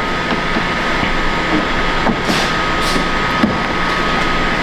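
A steady mechanical hum with a constant high whine throughout. Over it come a few light clicks and two short scrapes from a screwdriver working out the second screw of a BMW X7 door handle.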